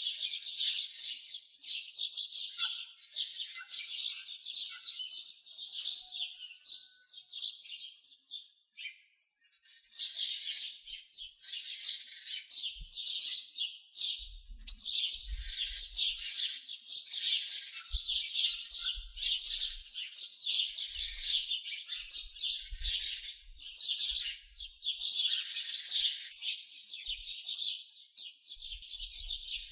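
Many small birds chirping and twittering in a dense, continuous chorus, with a brief lull about nine seconds in and faint low bumps now and then in the second half.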